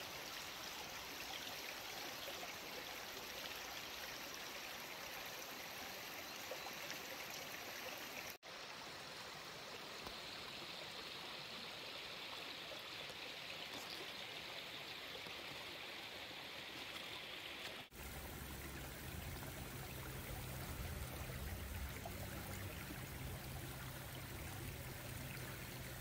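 Small forest stream running steadily, an even water noise. After a cut about two-thirds in, a low rumble joins it.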